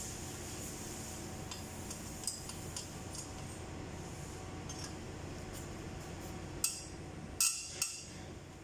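Metal tool clinking against the rocker arms and adjusting screws of a Perkins 2806C diesel engine's valve gear during tappet clearance adjustment: several light clinks, then three sharper clinks near the end, over a steady background hum.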